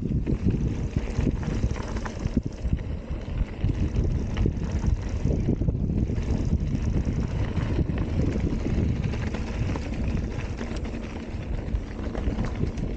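Ibis Ripley AF mountain bike rolling over a dirt singletrack trail: a steady rough rumble of tyres and wind buffeting the microphone, with scattered clicks and rattles from the bike.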